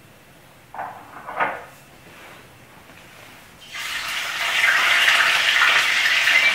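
Lionfish fillet in hot frying oil: after two short noises about a second in, the oil breaks into a steady, loud sizzle a little past halfway, a sign that the oil is hot enough to fry.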